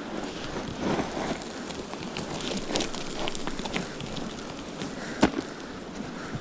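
Footsteps and scrambling on loose gravel and crumbly rock down a steep cliff path: a run of crunches, scrapes and small clicks, with one sharp knock about five seconds in.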